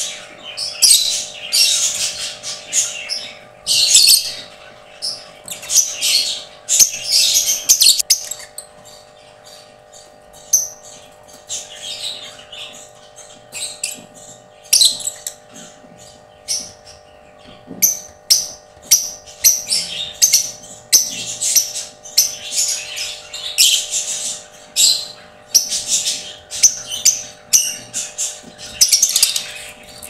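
Lovebirds chattering and squawking: repeated bursts of high-pitched chirps, with a lull of a few seconds about a third of the way through.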